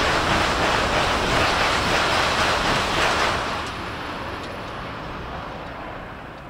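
Shinkansen bullet train passing at high speed close by, a loud rushing noise of air and wheels on rail. About three seconds in the noise drops off sharply as the train goes by, then fades away.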